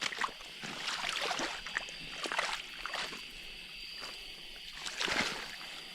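Creek water sloshing and splashing in short irregular strokes where debris has been cleared from a beaver dam so the water flows through, with a faint steady high tone.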